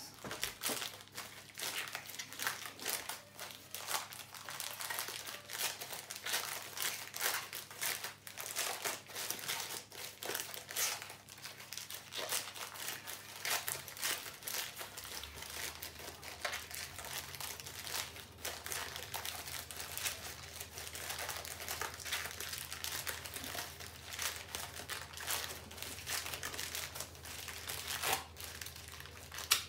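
Thin plastic shopping-bag sheets crinkling continuously as fanned, tied layers are peeled apart and fluffed out by hand into a flower.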